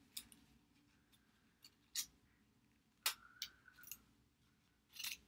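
Scissors snipping through construction paper, cutting small triangles out of a fringed paper square: a handful of short, separate snips, the loudest about three seconds in.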